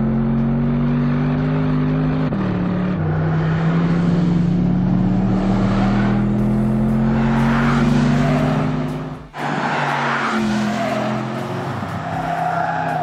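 Porsche Panamera Turbo S's 4.0-litre twin-turbo V8 accelerating hard on track. Its pitch climbs through the gears, with an upshift about two seconds in. The sound dips out sharply for an instant about nine seconds in, then carries on at a lower pitch.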